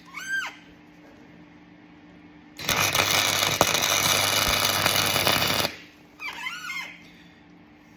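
MIG welder arcing in one burst of about three seconds, a steady buzzing crackle, as a bolt is welded onto a stripped hinge screw to turn it out. Short squeaks come just before and after the weld.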